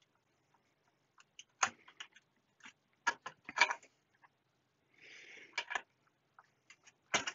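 Sharp clicks and taps of parts being handled inside the open metal chassis of a Fluke 8810A bench multimeter during teardown, a handful of louder knocks among lighter ticks, with a short rustling scrape about five seconds in.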